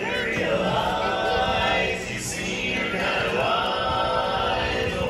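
Barbershop quartet singing a cappella: four men's voices in close harmony, holding long chords.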